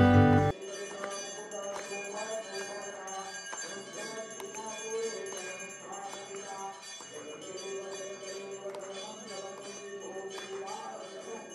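Hindu temple bells being rung over and over, many ringing tones overlapping and sustaining, with fresh strikes scattered throughout.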